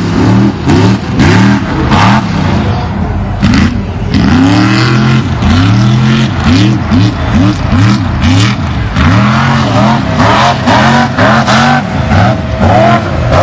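Mega truck engine revved hard again and again, its pitch climbing and dropping back about once a second, with scattered sharp cracks and knocks among the revs.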